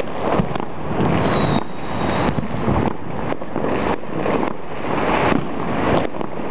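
Many fireworks and firecrackers going off at once, an unbroken rattle of bangs with no gap. About a second in, a high whistle sounds for under two seconds, falling slightly in pitch.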